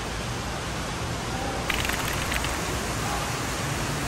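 Steady, even hiss-like noise, with a few faint clicks about two seconds in.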